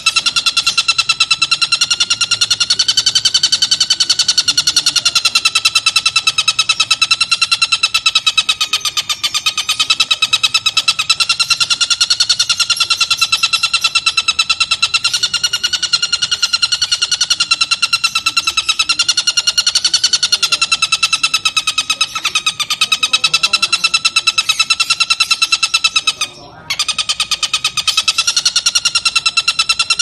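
Oriental dollarbird (tengkek buto) giving its long cackling call, a fast, unbroken rattling chatter that wavers a little in pitch, with one brief break about 26 seconds in.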